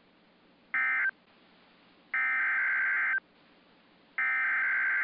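Emergency Alert System SAME data bursts on NOAA Weather Radio, the two-tone digital modem warble that codes an alert. A short burst comes about a second in, then two longer bursts of about a second each, the pattern of an end-of-message code followed by the header bursts of the next warning.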